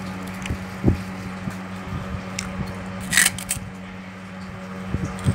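Hands pressing and working damp soil in steel bowls, with scattered soft knocks and taps and a sharper scrape about three seconds in, over a steady low hum.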